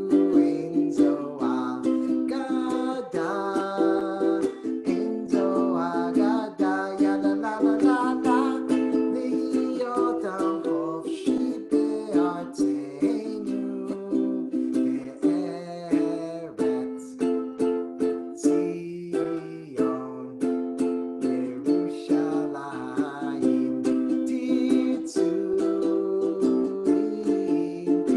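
Ukulele strumming chords in a steady rhythm.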